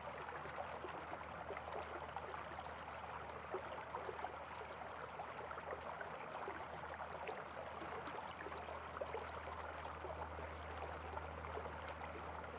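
Faint steady rushing noise with a low hum underneath, unchanging throughout.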